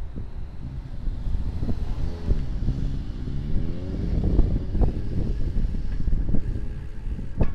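Wind buffeting the microphone on a fast downhill bicycle ride, with a nearby motor vehicle's engine accelerating, its pitch rising from about two seconds in to about four and a half.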